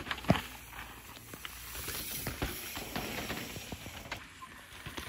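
Downhill mountain bike passing on a steep dirt trail: tyres skidding and crunching on loose dirt, with the bike clattering over roots in a string of short knocks. One sharp knock comes just after the start.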